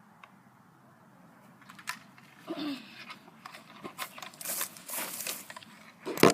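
Irregular rustling and crackling, with scattered clicks, starting about two seconds in, and a single sharp click, the loudest sound, near the end.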